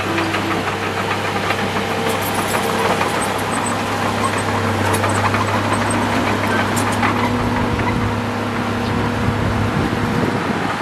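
Komatsu D37P crawler bulldozer's diesel engine running steadily as it pushes earth. Its low hum drops away about a second before the end.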